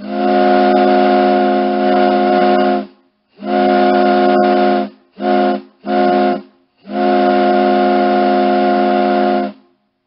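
Ship's horn sounding five blasts: two long, two short, then a long one. Each blast is a steady, deep chord of several tones.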